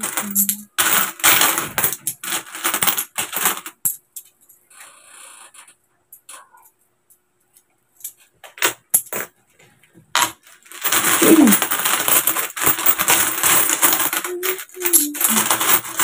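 Coins clinking and sliding against each other as hands sort through a big pile of coins on a table and stack them for counting. Busy at first, then a lull of several seconds with only the odd click, then busy clinking again.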